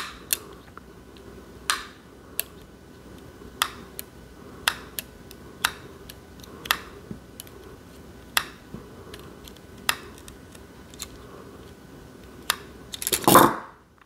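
Small scissors snipping stray thread ends at a seed-bead bracelet's tube clasp: a series of sharp clicks, roughly one a second. A brief, louder rustling noise comes near the end.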